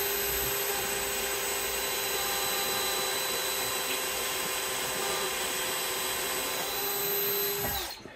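Ridgid cordless drill with a small 7/64-inch bit running steadily at a constant pitch as it bores a pilot hole into the wooden cabinet. Near the end the motor winds down and stops.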